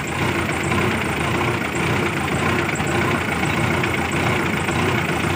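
The diesel engine of a Hydra ACE F160 mobile crane running steadily just after a hard start, with no change in speed. The mechanic has found too little fuel pressure in the injector pipes.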